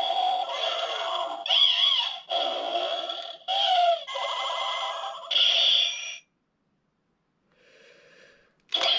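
Inromaru toy playing its longest sound clip, for the final Samurai Gigazord combination, through its small built-in speaker: a string of electronic voice and effect sounds in several bursts. It stops about six seconds in, followed by a faint sound and a short louder one near the end.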